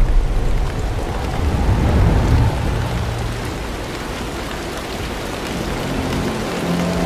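Thunder rumbling over steady heavy rain; the low rumble dies away about two and a half seconds in, leaving the hiss of the rain. Faint music notes come in near the end.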